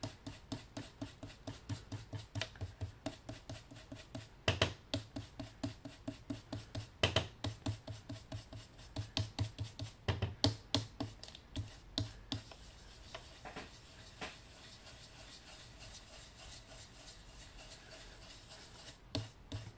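Round foam ink-blending tool dabbing and rubbing ink onto cardstock through a stencil, a soft rhythmic tapping about two or three times a second with a few louder taps. About twelve seconds in the tapping stops and only faint rubbing remains.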